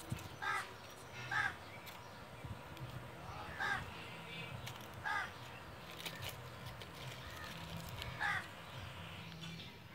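A crow cawing five times at irregular intervals, each caw short.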